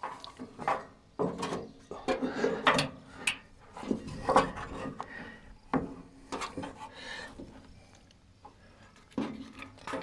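Irregular knocks, clicks and rubbing from hands working behind the band wheel inside a sawmill's sheet-metal wheel housing. The sounds come in clusters, ease off for a couple of seconds near the end, then start again.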